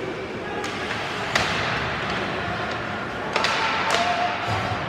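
Ice hockey play in an arena: several sharp knocks of puck and sticks on the ice and boards, the loudest about a second and a half in, over a steady din of spectators' voices.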